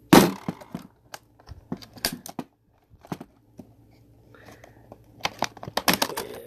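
Product packaging being torn open and handled by hand: a loud rip right at the start, then crinkling with scattered clicks and taps that grow busier near the end.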